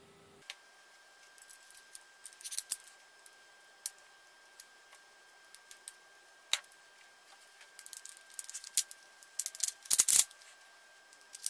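Irregular small clicks and clacks of a WE Glock 33 Advance gas blowback airsoft pistol being reassembled by hand, as the barrel and recoil spring are fitted into the slide, with a louder clack near the end as the slide goes onto the frame.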